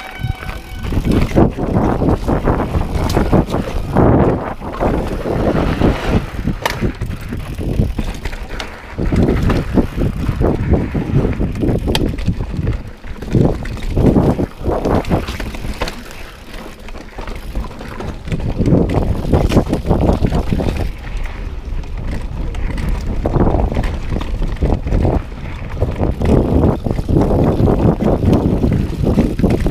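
Mountain bike ridden fast over a dirt and rock trail: knobby tyres rumbling over the ground, with the bike knocking and rattling over bumps and roots, under wind noise on the camera microphone. The rumble eases briefly about halfway through, then builds again.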